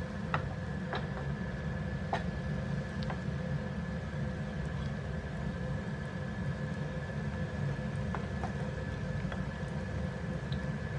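Bread rolls deep-frying in hot oil on a low flame: scattered small pops and crackles from the oil over a steady low hum.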